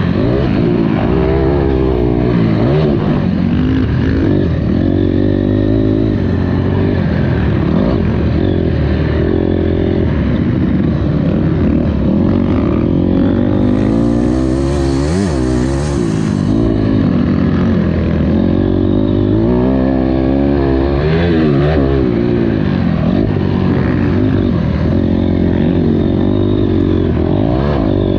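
Honda CRF250R motocross bike's four-stroke single-cylinder engine being ridden hard, its pitch rising and falling over and over as the rider opens and closes the throttle and shifts through the gears.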